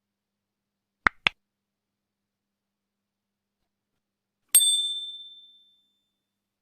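Two quick sharp clicks, then a single bright bell ding that rings out and fades over about a second.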